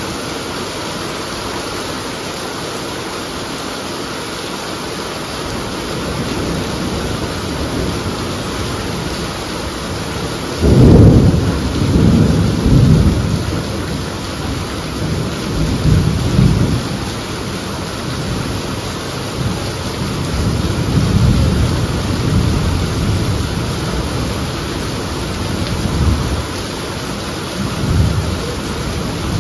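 Heavy rain falling steadily. About a third of the way in, a sudden loud crack of thunder breaks into rolling rumbles that swell and fade several more times.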